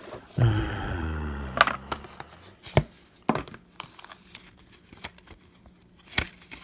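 Sharp clicks and taps with light crinkling as a packaged replacement phone screen assembly and its packaging are handled on a bench. A brief low hum-like sound comes in the first two seconds.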